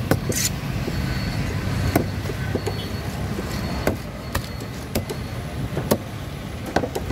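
A large knife chopping through a trevally on a wooden board: about eight sharp knocks at irregular intervals as the blade hits flesh, bone and wood, over a steady low rumble of traffic.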